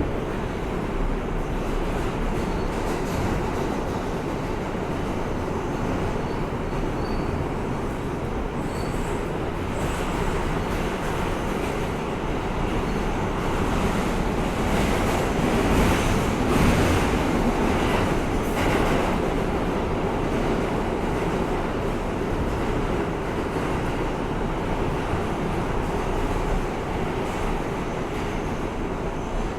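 R160A-2 subway car running along the track, heard from inside the car: a steady rumble of wheels on rail that swells for a few seconds midway, with a few faint, brief wheel squeals in the first ten seconds.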